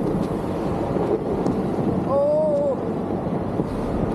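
Wind buffeting the microphone over a vehicle engine running. About two seconds in, a person gives one short call that rises and falls.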